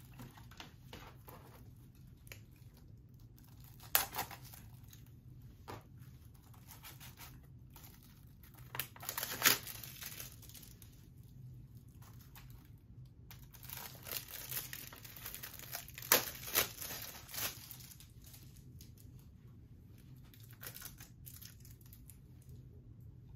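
Plastic wrapping being torn and crinkled off a Blu-ray case, in scattered bursts of tearing and rustling. The loudest come about nine and a half and sixteen seconds in.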